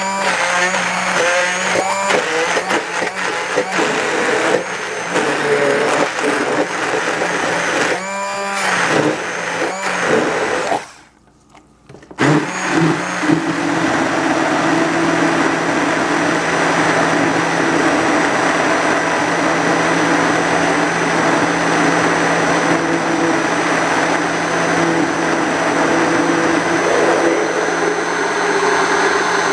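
Hand-held immersion blender running in a tall cup of cucumber, arugula and yogurt, its pitch rising and falling for the first part. It cuts out for about a second around a third of the way in, then starts again and runs steadily.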